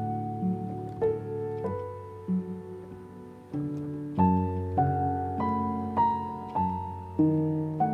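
Piano music: a slow, gentle run of notes and chords, each struck about once a second and left to ring out.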